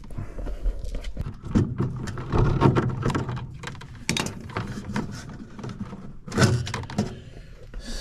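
Handling noise inside a furnace cabinet: irregular knocks, clicks and rattles as wiring, wire nuts and metal parts are moved, the loudest knock about six and a half seconds in, over a low hum.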